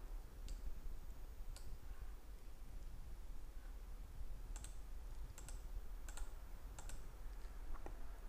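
Computer mouse button clicking: about seven single, sharp, scattered clicks, faint over a steady low hum.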